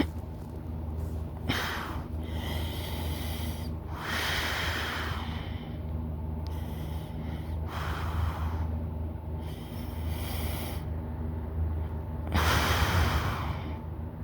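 A sleeping person snoring, with a rasping, snorting breath every few seconds, the longest and loudest near the end.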